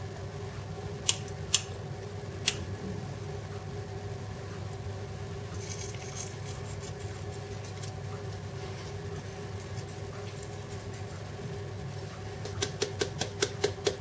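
A paprika jar shaken over a plate of potato slices near the end, giving a fast run of sharp ticks, about five a second. Earlier there are a few single clicks and a brief soft hiss about six seconds in, over a steady low hum.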